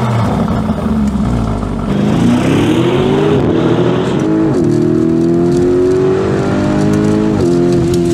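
Car engine accelerating through the gears: the pitch climbs, then drops back at each of three upshifts.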